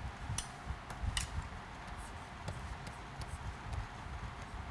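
Scattered light clicks and taps of a stylus on a pen tablet as handwriting is entered, over a low steady hum.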